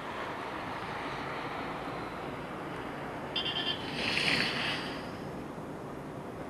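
Steady distant rumble of a ballast hopper train mixed with wind on the microphone. A short, high pulsed squeal comes a little past three seconds in, then a louder hiss lasting under a second.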